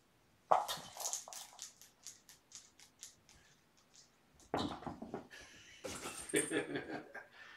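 Kittens playing with plastic cat toys on a carpet: a quick run of light clicks that fades out, then bursts of rattling and scuffling near the end.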